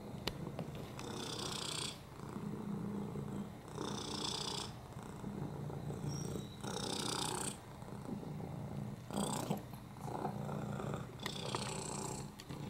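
Domestic cat purring steadily while being stroked, a low continuous rumble with a soft rushing sound that comes back about every two and a half seconds, five times.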